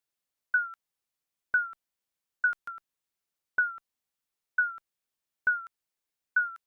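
Digital countdown timer beeps: short, slightly falling electronic pips about once a second, one pair coming close together near the middle.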